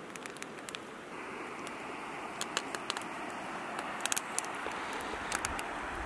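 Wood campfire crackling, with frequent sharp pops and snaps over a steady rush of a rocky river.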